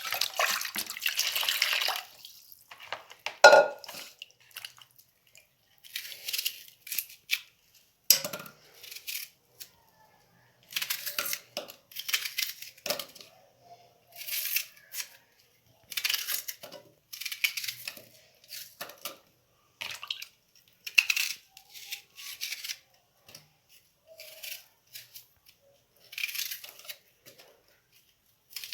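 A red onion being peeled and cut by hand, giving short crisp crackling crunches about once a second, with a single sharp knock a few seconds in.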